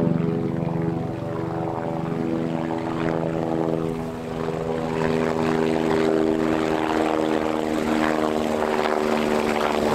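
Helicopter flying low overhead: a steady drone of rotor and engine with an even pitched hum, growing a little louder about halfway through.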